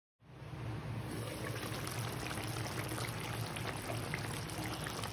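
Chicken curry bubbling at a rolling boil in an open pan, the gravy popping in many small bursts, with a low steady hum underneath.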